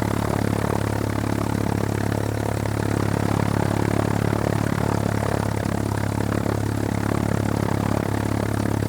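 Propeller aircraft engine idling: a steady low drone that holds an even pitch and level throughout.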